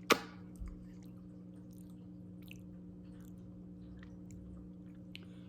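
A person chewing food close to the microphone: faint, scattered wet mouth clicks, opening with one sharp knock and a weaker one about half a second later. A steady low hum runs underneath.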